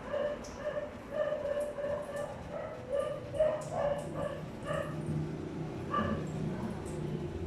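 A pet animal giving short, high, rapid cries, two to three a second, that stop about five seconds in, with one last cry near six seconds. A steady low treadmill motor hum comes in about halfway through.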